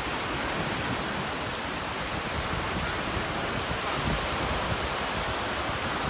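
Small waves breaking and washing up a sandy beach, a steady rushing surf, with wind buffeting the phone's microphone.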